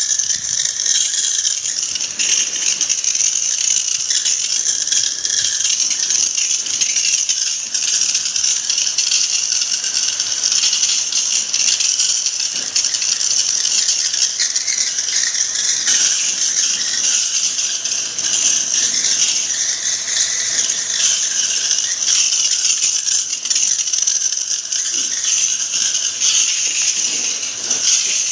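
High-pressure water jet spraying into a window-type air conditioner's chassis and coils: a steady hiss of water striking metal, running throughout.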